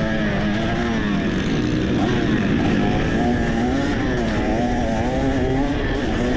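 2023 KTM 300 XC's fuel-injected 300 cc single-cylinder two-stroke engine under riding load, its pitch rising and falling repeatedly as the throttle is rolled on and off.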